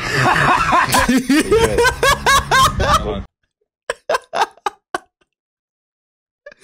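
A man laughing hard at a joke before its punchline, a quick run of rising-and-falling ha's over a steady street-traffic hum. It cuts off suddenly about three seconds in. A second man follows with a few short breathy bursts of laughter.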